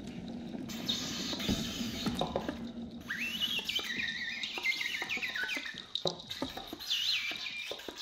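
Oboe played with extended techniques: high, quickly bending squeaks and chirps with scattered clicks. These follow a low steady tone in the first few seconds.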